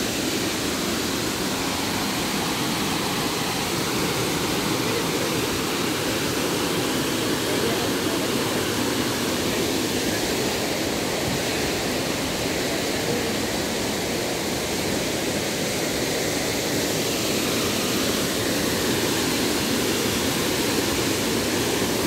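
Waterfall's steady rushing roar of falling water, constant and unbroken.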